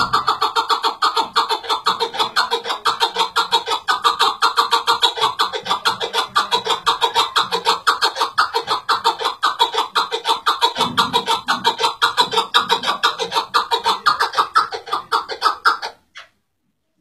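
Chukar partridge calling: a long, fast run of repeated clucking notes, about eight a second, that stops abruptly near the end.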